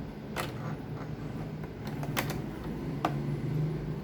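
Three sharp clicks during sewing work, about half a second, two seconds and three seconds in, over a steady low hum.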